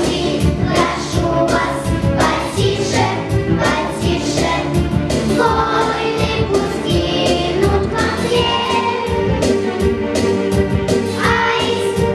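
A children's choir singing a song over an instrumental backing track with a steady beat.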